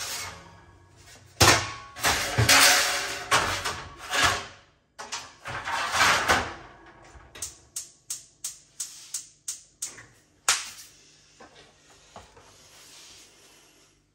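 Clattering and rustling at a gas cooker, then its spark igniter clicking about three times a second for about three seconds, ending in a louder clunk as the burner is lit.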